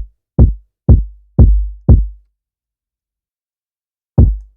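Drum machine kick drum looping about twice a second, each hit a sharp attack with a long, low boom, run through Ableton's Drum Bus with the drive, crunch and low end turned up to make it sound dusty and worn. The hits stop for about two seconds and start again near the end.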